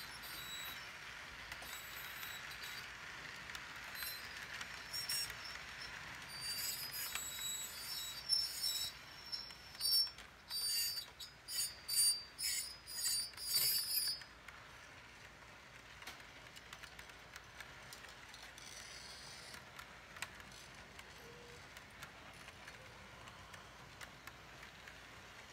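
Model container train running past on the layout's track with a steady rolling hiss. Partway through, a loud rhythmic clicking about two times a second runs for several seconds, then stops suddenly.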